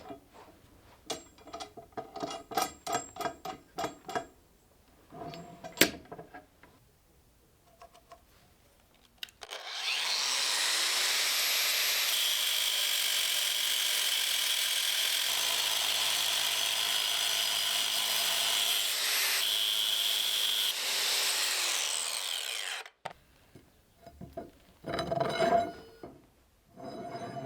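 Workshop clatter and knocking for about nine seconds. Then a power tool starts up, runs steadily with a high whine for about thirteen seconds, and winds down, followed by more clattering.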